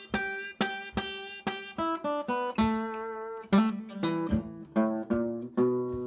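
Steel-string acoustic guitar played solo in a blues style: a run of single picked notes, about two a second, with one note left ringing for about a second near the middle.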